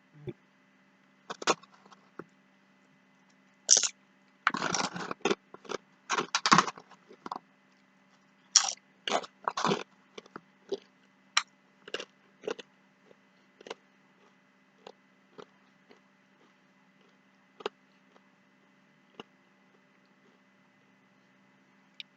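A person chewing and eating food close to the microphone: irregular short, sharp mouth and food sounds, packed closely for the first ten seconds or so, then thinning out to occasional single ones.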